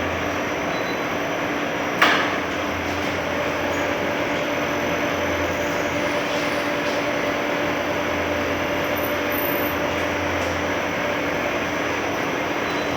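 Semi-automatic perfume bottle valve crimping machine running with a steady mechanical noise, one sharp clack about two seconds in, and a steady hum that sets in about a second later.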